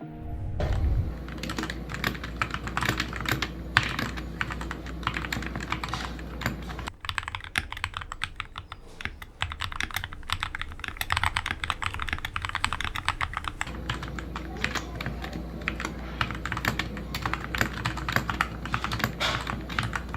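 Redragon Fizz mechanical keyboard fitted with Akko switches being typed on fast: a dense, continuous stream of key clicks and clacks.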